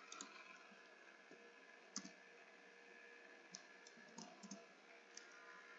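Near silence broken by a few faint computer key clicks: one a little louder about two seconds in, then a handful of light taps in the second half.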